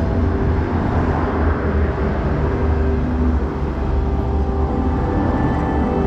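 Road traffic: cars driving past on a street, a steady noise with a strong low rumble.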